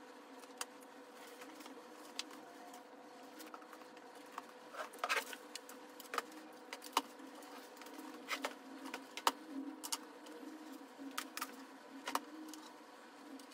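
Scattered light clicks and knocks from an aluminium-extrusion 3D printer frame being tipped onto its side and its loose wires handled, over a steady faint hum.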